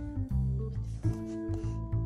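Background music with a plucked bass line and held higher notes.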